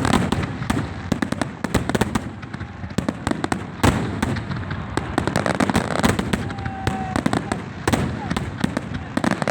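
Fireworks and firecrackers going off in quick, irregular succession, a dense string of sharp pops and bangs over a steady background rumble, with one louder bang about four seconds in.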